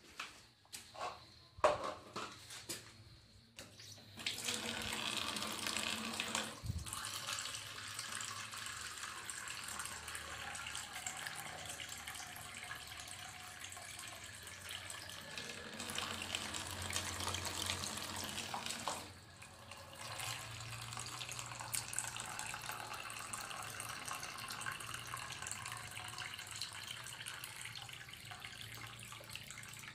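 A few knocks at the start, then water running steadily from a tap into plastic dippers over a plastic basin, the sound of the stream dipping briefly twice.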